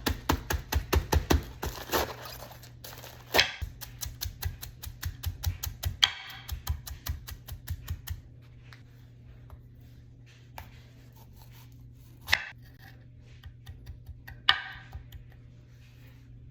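Knife chopping lettuce and tomatoes on a cutting board: a fast, even run of knocks, about five a second, for the first eight seconds or so. After that come a few separate knocks.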